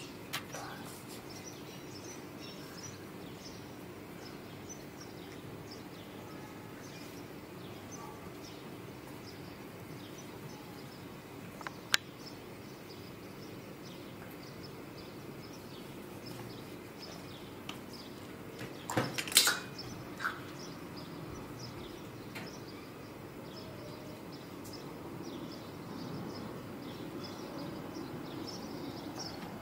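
Steady quiet room noise with faint, scattered chirps, a single sharp click about twelve seconds in and a louder cluster of clicks about two-thirds of the way through.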